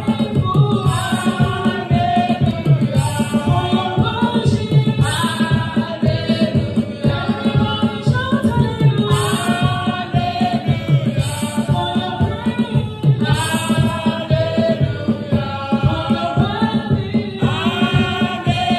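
Several women's voices singing a praise and worship song through microphones over an instrumental backing with a steady beat.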